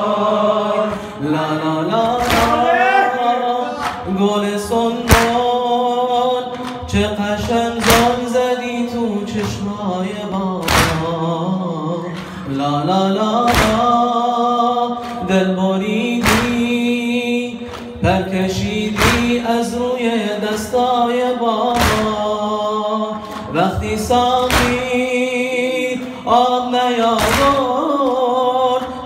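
A man chanting a Farsi noha, a Shia mourning lament, in a bending, melismatic voice. A sharp beat keeps time about every second and a half.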